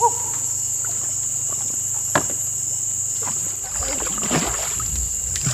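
A raft being paddled on a river: a few sharp knocks and watery splashes from the paddle, with a low rumble setting in about two-thirds of the way through. Insects drone steadily at a high pitch behind it.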